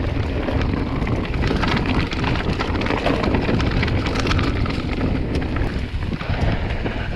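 Mountain bike riding down a rough trail: tyres crunching over rock and gravel, with a constant stream of rattling clicks from the bike.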